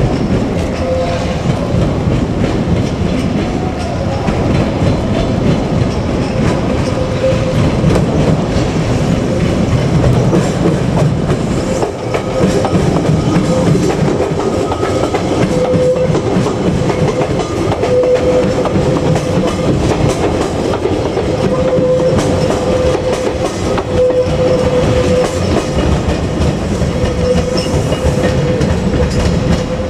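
JR Kyushu 817 series electric train (two two-car sets coupled) passing a level crossing, its wheels clacking over the rail joints. A steady tone, the crossing's warning bell, sounds over the rumble.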